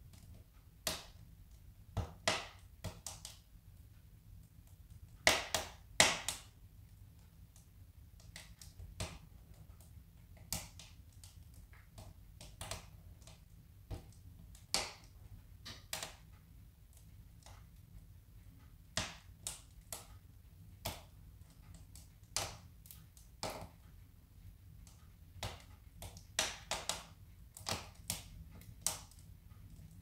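Split kindling wood burning in a wood stove, crackling with irregular sharp pops, a few louder ones about five to six seconds in, over a faint low hum.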